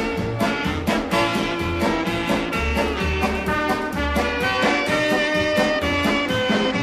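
Swing-style background music with a steady beat and a moving bass line.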